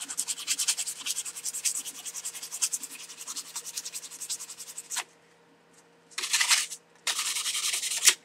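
150 grit sandpaper rubbed by hand along a stainless steel butter-knife blade in quick back-and-forth strokes, about five a second, growing fainter and stopping about five seconds in. Near the end come two louder, longer sandpaper scrapes.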